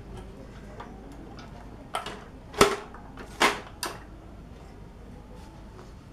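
Hands handling a dismantled exhaust fan: four sharp knocks and clacks of its frame and parts, bunched between about two and four seconds in, the second the loudest.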